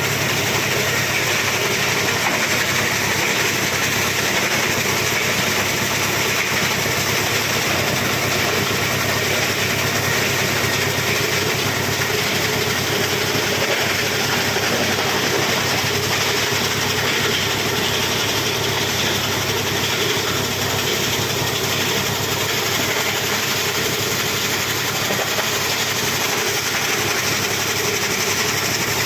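A 24-inch plastic scrap grinder machine running steadily, its motor and rotor making a continuous mechanical noise.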